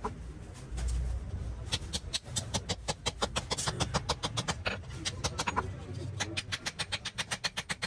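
Hand hammer striking metal pins through a knife's wooden handle scales on a steel anvil, peening the rivets tight. Quick runs of light, sharp taps, about five a second, with brief pauses between runs.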